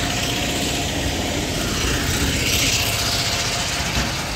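Road traffic noise: a steady rumble with a vehicle passing by, its hiss swelling and fading about halfway through.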